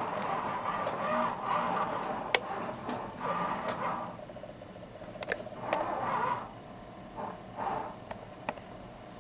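A camcorder's own mechanical noise: the zoom motor whirring in several short runs, with a few sharp clicks of the zoom button.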